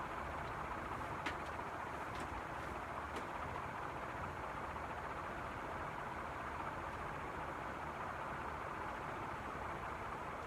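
NuTone Proline 1 56-inch industrial ceiling fan running steadily while being slowed on a solid-state speed control, with a few faint ticks in the first few seconds.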